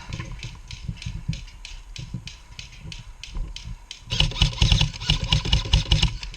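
Airsoft electric rifle firing a loud, rapid full-auto burst of about two seconds, starting about four seconds in. Before it there is a lighter, even run of sharp clicks about four a second.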